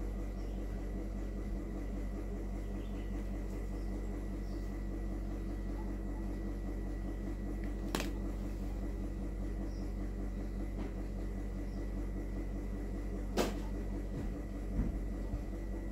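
Steady machine hum with a thin, high, constant whine, broken by a sharp click about halfway through and another near the end.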